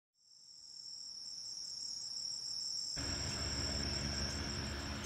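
Crickets trilling steadily at night, fading in from silence. About three seconds in, a low rushing noise with a hum joins them.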